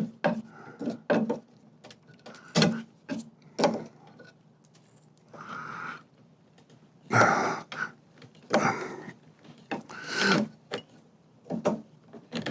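Wooden parts of an old table being worked apart by hand: a string of sharp knocks, then several longer rough rubbing, creaking noises as a loose joint is eased out.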